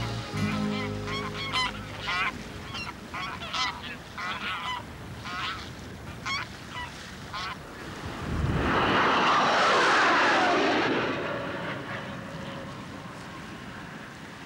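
A flock of geese honking in flight, many short calls in quick succession. About eight seconds in, a jet aircraft passes over, its noise swelling and fading with a falling whine.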